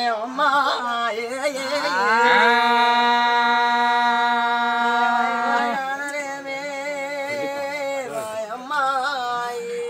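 A singer sustaining a wordless raagam passage of a Telugu devotional folk song. Ornamented, wavering notes lead into one long note held steady for about three seconds, followed by more wavering phrases.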